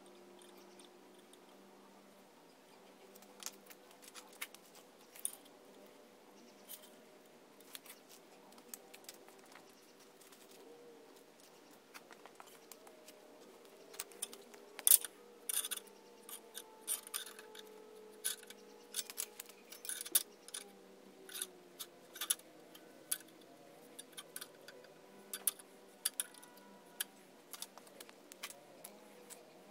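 Light, irregular clicks, taps and scratches of small hand tools on a steel plate and workbench while it is marked out, sparse at first and busier from about halfway. A faint steady hum runs underneath.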